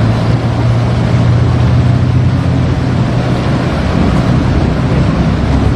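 Steady drone of the engines of many water-pushing machines running together under the bridge, with the river churning where their propellers push the floodwater.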